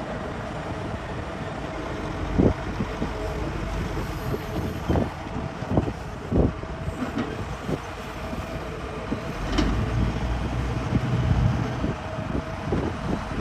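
Hitachi excavator digging rock: the engine runs steadily with a constant whine, broken by irregular sharp knocks and clanks of metal on rock. The engine note grows heavier for a couple of seconds about ten seconds in, as if under load.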